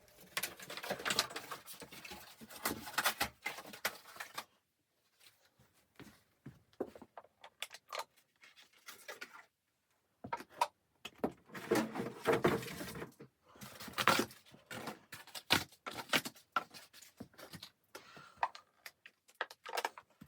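Irregular clicks, clacks and rustling of objects being handled, in bursts with short quiet gaps, in a small room.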